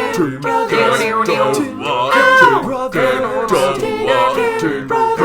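Male voices singing a cappella in harmony, a short sung phrase with no instruments.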